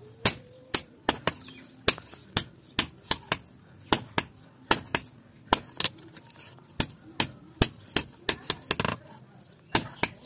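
Hand hammer striking a chisel held on leaf-spring steel laid on an anvil, cutting out the cleaver blank by hand: sharp metal-on-metal blows about two to three a second, many with a high ringing clink, with a brief pause near the end.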